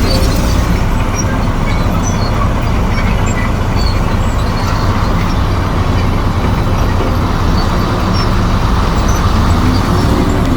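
Komatsu D58E crawler bulldozer's diesel engine running steadily under work, a continuous low drone.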